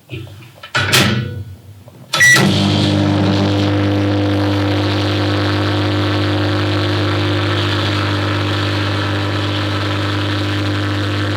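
Microwave oven running: a sharp click about two seconds in, then a steady electrical hum with a low buzzing drone.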